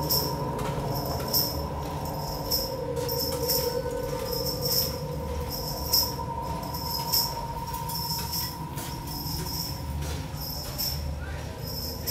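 Eerie ambient sound-design drone: a low rumble and a steady hum, with a bright, metallic tick repeating evenly about every second and a quarter.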